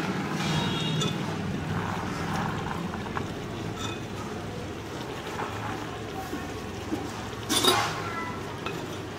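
Chickpeas sliding off a steel plate into a metal cooking pot of water, a brief pour about seven and a half seconds in. Before it, a few light clinks of the chickpeas being sorted on the plate, over a steady low hum.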